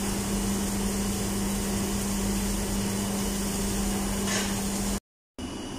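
Steady drone of running commercial kitchen equipment: an even whooshing noise over a constant low hum, with a brief faint click about four seconds in. The sound cuts out abruptly near the end.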